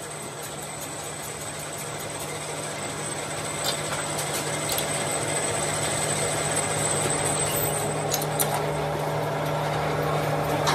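Steady hum of workshop machinery, growing gradually louder, with a few light metal clinks as a cast brake cylinder body is unbolted from a lathe faceplate fixture.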